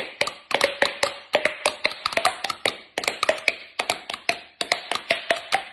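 Two people slapping their cheeks with open mouths, making a quick run of hollow pitched pops, about five a second, the pitch shifting from one pop to the next as they change their mouth shape.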